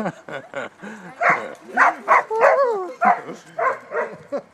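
Dog barking and yelping in play, a quick run of short, pitched barks with a longer call that slides in pitch about two seconds in.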